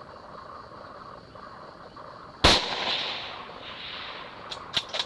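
A single long-range precision rifle shot about halfway through: one sharp, loud crack whose echo rolls on for about a second and a half. Three quick sharp clicks follow near the end.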